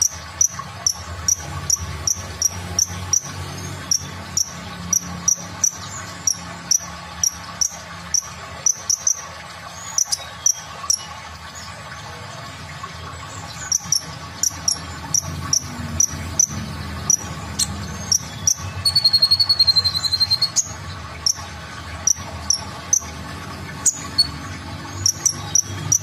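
Male Van Hasselt's sunbird (kolibri ninja) calling: a long run of sharp, high chips, about three or four a second. About three-quarters of the way through comes a short high trill of under two seconds, the loudest part. A faint low hum runs underneath.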